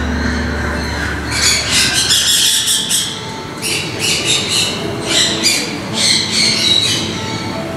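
Shoebill clattering its bill: several short bouts of rapid rattling, each a second or less, with short gaps between them.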